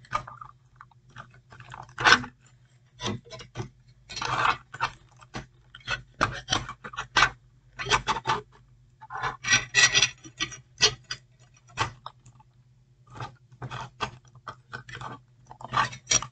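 Plastic action figure and its display stand being handled: scattered clicks, rubbing and scraping as the figure is worked onto the stand.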